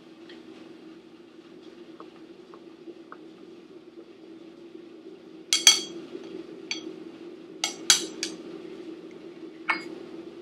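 Long wooden chopsticks stirring beaten egg in a porcelain bowl, with faint light ticks, then several sharp clinks of chopsticks against the china from about halfway through. A steady low hum runs underneath.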